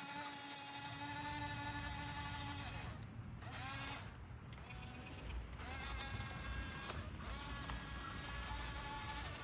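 Small electric motors and plastic gearboxes of an RC construction machine whining. The whine cuts out and starts again several times, gliding in pitch as it restarts, over a low rumble.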